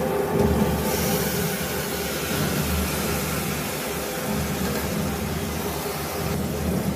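Wet minced meat sizzling as it is tipped into hot oil in a pressure cooker: a steady frying hiss that grows brighter about a second in, with a faint steady hum underneath.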